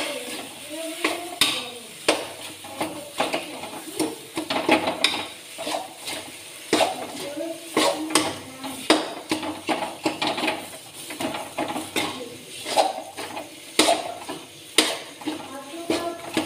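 Metal spoon stirring in a pan on the stove, clinking and scraping against the metal in quick, irregular strokes.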